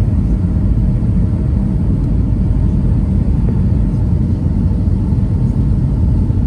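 Jet airliner cabin noise on approach: a steady low rumble of engines and rushing air, heard from inside the cabin at a window seat over the wing.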